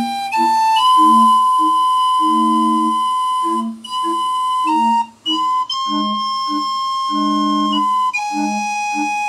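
Steam calliope playing a tune: long, steady whistle notes carry the melody over a lower accompaniment that pulses in a regular beat.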